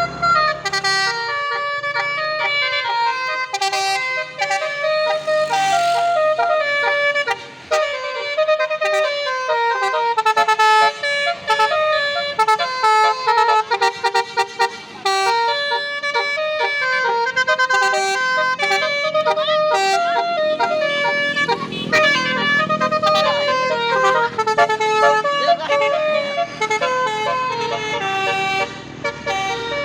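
Telolet Basuri musical air horn on a tour bus playing a flute-like melody, a continuous run of stepping notes, with some traffic or engine noise underneath partway through.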